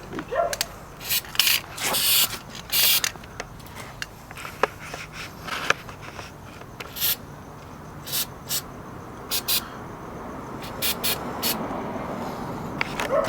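Aerosol can of Flex Seal rubberized sealant spraying in a string of short hissing bursts, a few longer ones in the first three seconds and quicker spurts after that.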